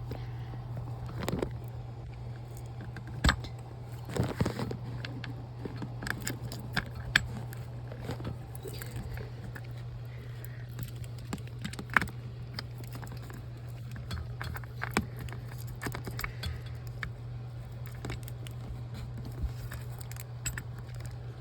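Handling noise from a small battery-powered device: scattered, irregular clicks and taps, a few of them sharper, over a steady low hum.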